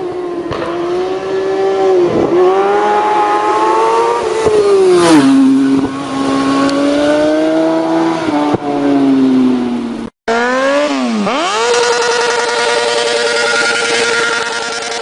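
Motorcycle engine accelerating hard, its pitch climbing and then dropping at gear changes about two and five seconds in. After an abrupt cut about ten seconds in, a second engine dips briefly, then climbs and is held steady at high revs.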